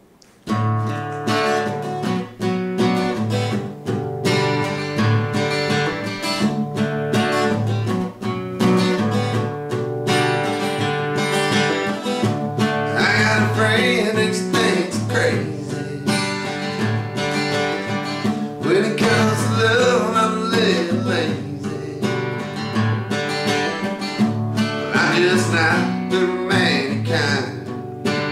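Solo steel-string acoustic guitar playing a country song, fingerpicked and strummed chords, starting about half a second in.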